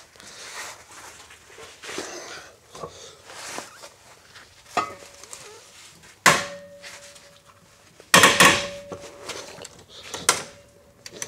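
Metal clanks and knocks of a wrench on a rusted, heat-gun-heated control arm bolt as it is forced to break loose. A handful of separate knocks, the loudest a little past eight seconds in, with a faint ringing tone after one of them.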